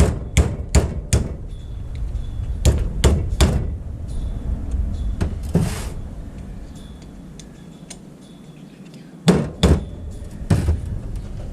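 Metal hammer blows struck in quick groups of two or three, knocking at a stuck grease seal in a 14-bolt axle hub to drive it out. A longer rasping noise comes partway through.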